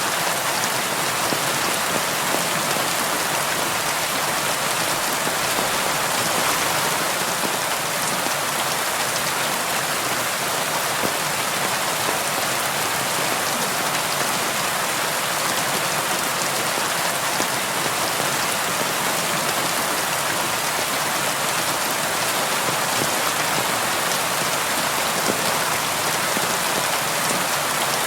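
Steady rain falling on window glass: an even, unbroken hiss with faint individual drops ticking through it.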